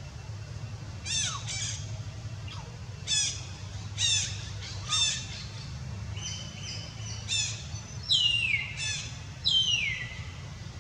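A series of about nine short, high-pitched animal calls over a steady low rumble; the last few, near the end, slide down in pitch.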